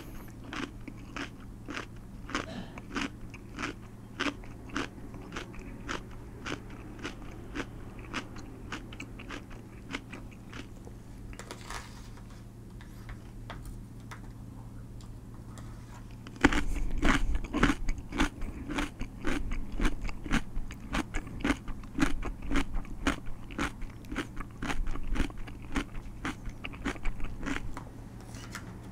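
A person chewing crunchy food close to a microphone, about two crunches a second. After a pause about halfway through, the crunching comes back louder.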